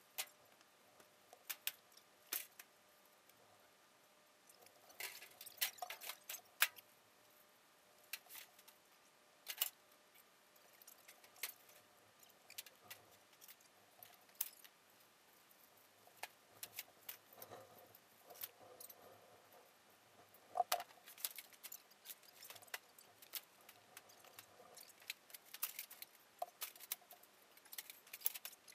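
Faint, irregular clicks, knocks and clattering of rubbish being loaded onto the back of a truck, with a few sharper knocks standing out.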